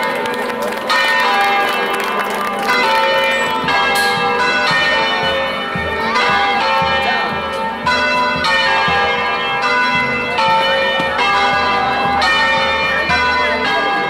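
Church bells ringing a festive peal: several bells struck one after another about once a second, their tones overlapping as they die away.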